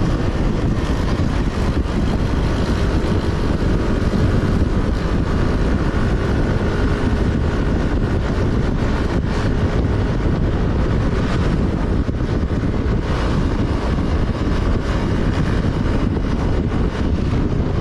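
A vehicle on the move: steady engine and road noise with no change in pace.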